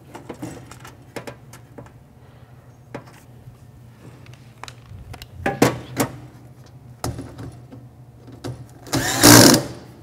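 Cordless drill driving a screw in one short burst about nine seconds in, the loudest sound here. Before it, scattered clicks and knocks of sheet-metal parts being handled.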